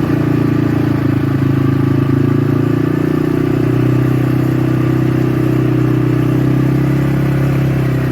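A motor vehicle's engine running steadily at an even, low pitch that dips slightly a few seconds in.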